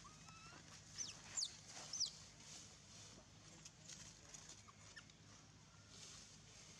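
Three short, high-pitched animal calls, each falling quickly in pitch, between about one and two seconds in.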